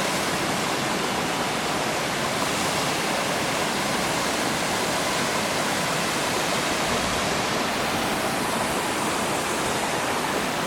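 Waterfall falling some 20 to 25 metres, heard from its base as a steady, even rush of water, flowing strongly.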